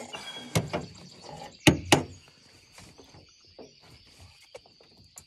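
A few sharp knocks and thumps as a just-caught small bass is handled in the boat to be measured; the loudest two come close together about two seconds in, with faint rustling between.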